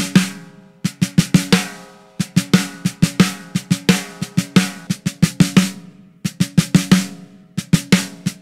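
PDP Concept Series gun-metal-over-steel 6.5x14 snare drum struck with sticks in short repeated figures, played unmuffled: each hit rings on with an open tone and overtones. Near the end, after a brief pause, the same snare plays with a single folded piece of duct tape on the head to damp the ring.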